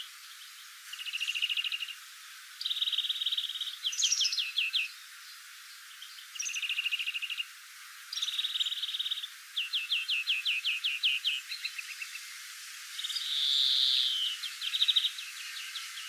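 European greenfinch singing its long, canary-like song: phrases of rapid even trills alternate with runs of quick downward-sweeping notes, with a buzzier phrase near the end.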